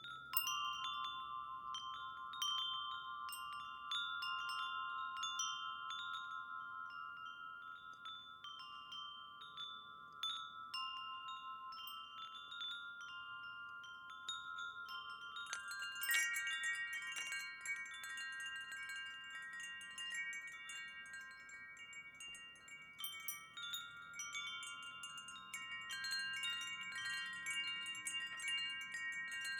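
Wind chimes ringing, struck over and over so that their long, clear tones overlap. About halfway through, a flurry of strikes brings in more and higher notes with a bright shimmer.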